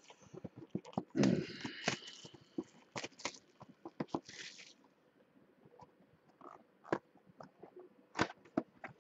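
Card box packaging being handled and opened: a loud crinkling, crunching burst about a second in, a shorter rustle around four seconds, and scattered clicks and taps of cardboard and plastic throughout.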